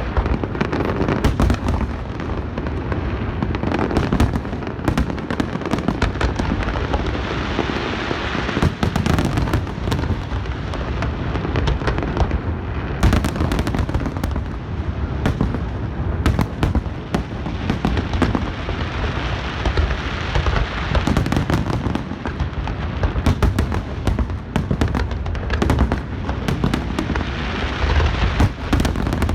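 Aerial fireworks shells bursting in a dense, continuous barrage, booms and crackles overlapping with no pause.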